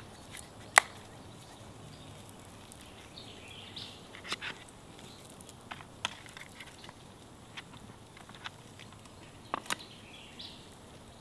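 A few sharp plastic clicks and taps as a plastic seasoning shaker is opened and shaken over a plate of meat, the loudest about a second in. Faint bird chirps twice.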